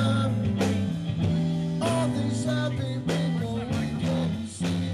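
A live band playing: electric guitar, bass guitar and drum kit together, with a steady drum beat under sustained bass notes.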